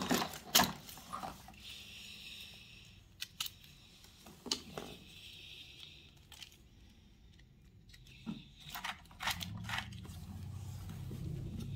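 Scattered plastic clicks, taps and scrapes from small toy race cars being handled against a plastic car carrier truck toy.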